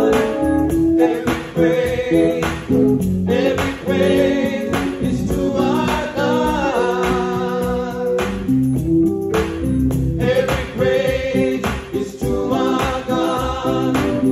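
Three men singing a gospel song together in harmony, accompanied by a keyboard.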